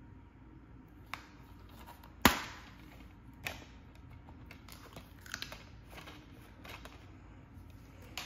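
Clear plastic Blu-ray keep case being handled and opened: a loud sharp plastic snap about two seconds in as the case comes open, then lighter clicks and rustling of the case and its inserts, and a knock near the end as the case is set down on a marble tabletop.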